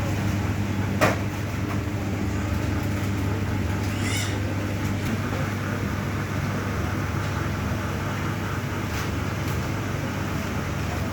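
Steady low mechanical hum, with a sharp click about a second in and a fainter one near the end.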